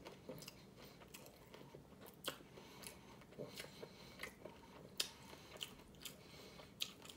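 A person chewing a mouthful of hard-shell vegan taco: faint, irregular crunches and mouth clicks.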